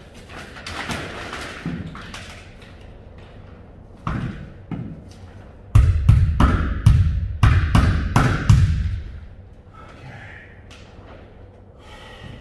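A hammer striking a screwdriver held against the trailer ceiling: a couple of single knocks, then a fast run of about ten hard blows over some three seconds, driving the tool in to rehang the air chute.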